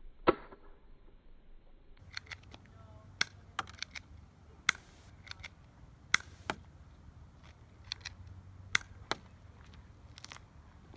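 Airsoft guns firing single shots: one loud sharp crack, then a string of about a dozen sharp cracks at irregular intervals, some in quick pairs.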